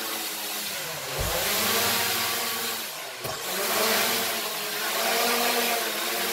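Small quadcopter drone's motors and propellers whirring, the pitch rising and falling as the throttle changes while it hovers and manoeuvres. Two brief low thuds, about a second in and about three seconds in.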